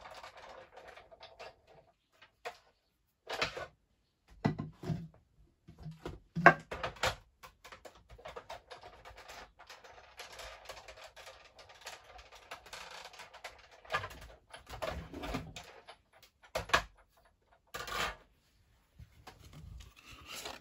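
Hand-cranked die-cutting and embossing machine rolling an embossing folder with card through its plates, a steady whirring of the rollers broken by irregular knocks and clacks of the plates and folder.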